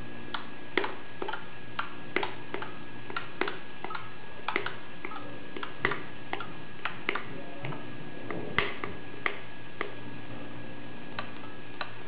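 Irregular sharp clicks, about two dozen, as buttons on a Juuko industrial crane remote are pressed and the relays in its receiver switch, over a steady background hum.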